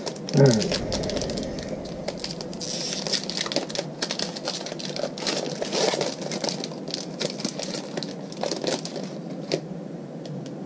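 Foil trading-card pack crinkling and crackling as it is torn open and handled, a run of many sharp crackles. About half a second in, a short falling tone is the loudest moment.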